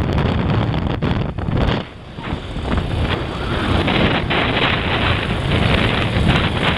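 Wind buffeting the microphone on a moving motorcycle, with the motorcycle running underneath; the rush eases briefly about two seconds in.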